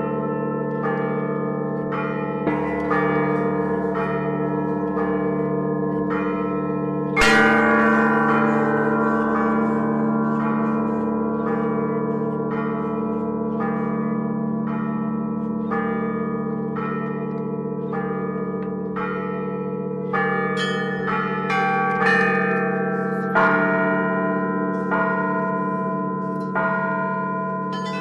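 Russian church bells rung in a zvon: smaller bells struck in a quick repeating pattern over the long ring of the larger bells. A heavy stroke of a big bell comes about seven seconds in, and stronger strokes come again several times near the end.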